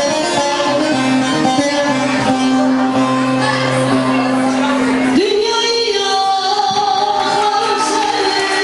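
Two bağlamas (Turkish long-necked saz lutes) strummed and plucked under a singer's long held notes; about five seconds in the voice slides up to a higher, wavering held note.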